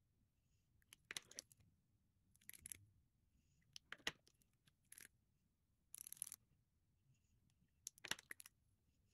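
Lipstick tubes and lip crayons clicking and knocking against a wooden tabletop and each other as they are set down and lined up: quiet, separate clicks, with a short scrape about six seconds in.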